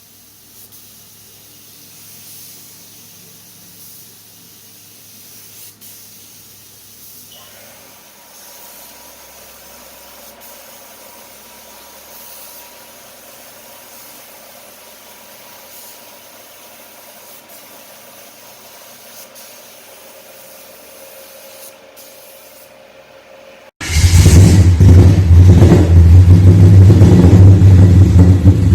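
Faint steady hiss with a few held tones, then about 24 seconds in a Chevy 454 big-block V8 cuts in abruptly, running loud and deep.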